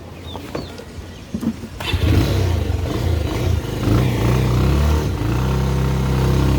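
Motorcycle engine starting about two seconds in, then running steadily and picking up a little about four seconds in.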